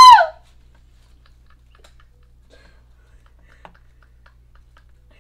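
The tail of a loud, high-pitched yell of "No!", cut off within the first half second. After it, quiet room tone with a few faint ticks.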